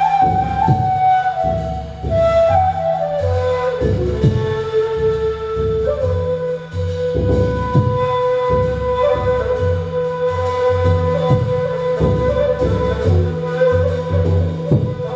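Ney (end-blown flute) playing a slow melody of long held notes that step downward and then settle on a low note, over a steady beat of deep drum strokes played with a mallet.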